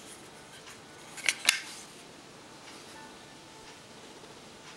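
A Xiaomi Wiha screwdriver kit's metal case handled in the hands: low rubbing and shifting, with two sharp clicks in quick succession about a second in.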